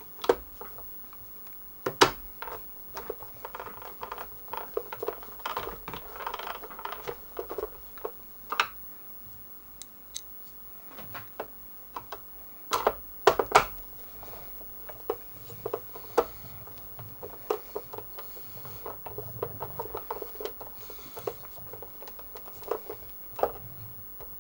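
A hand screwdriver turning the screws that hold the Commodore 1541-II disk drive's plastic case together: irregular small clicks and scraping as the screws turn, with a few sharper knocks from the case and tools being handled, including two close together about halfway through.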